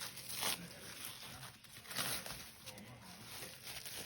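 Plastic cling wrap crinkling and rustling as it is peeled off rolled chicken breasts, in short bursts, the strongest about half a second and two seconds in.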